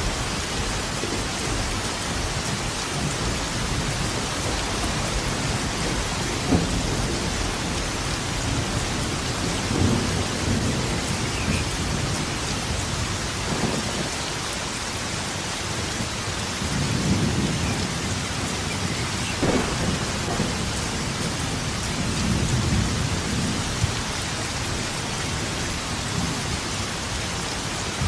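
Steady heavy rain falling, with rumbles of thunder swelling and fading several times and a few sharper cracks.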